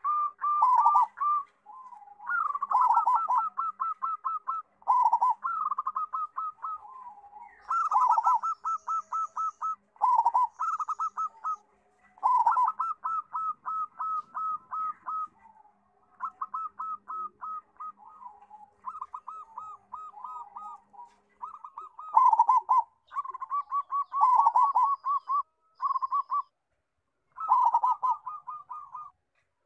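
Local zebra dove (perkutut) with a big voice, cooing its song over and over: each phrase a rapid run of short staccato notes that opens with a louder note, with brief pauses between phrases.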